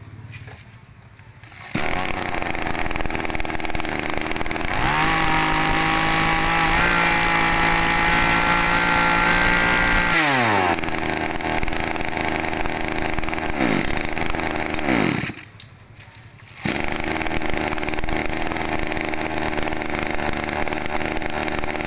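Shindaiwa 231 brush cutter's 23 cc two-stroke engine running. It is throttled up to a high, steady scream for about five seconds, then drops back to idle. Later come several quick throttle blips, with a break of about a second near the middle.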